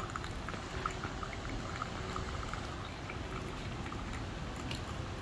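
MONARCHY Coffee Roaster pod machine dispensing Americano: a thin, steady stream of coffee trickling into a nearly full glass, with small scattered bubbling pops.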